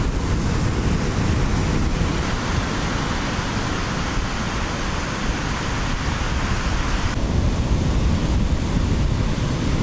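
Ocean surf washing steadily, with wind rumbling on the microphone. About seven seconds in, the higher hiss drops away abruptly.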